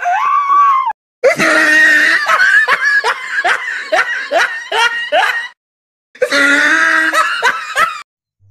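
Loud, high-pitched human vocal cries in three stretches: a short cry, then about four seconds of rapid pulsing shrieks at roughly two a second, then after a short gap another two-second run.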